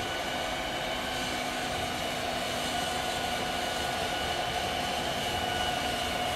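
Electric stand mixer running steadily, a constant motor whine, as it beats flour into cookie dough.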